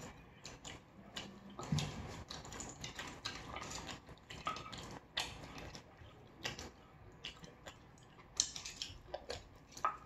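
Eating sounds: chewing, with irregular clicks of cutlery against dishes.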